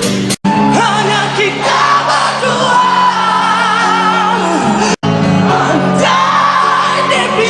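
A male rock singer holding high belted notes with a wide vibrato over band accompaniment, in short clips spliced together with two abrupt cuts, about half a second in and about five seconds in.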